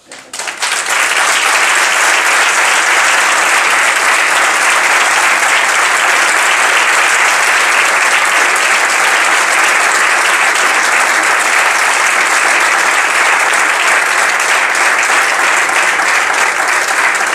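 Audience applauding: dense, steady clapping that swells up within the first second and dies away at the very end.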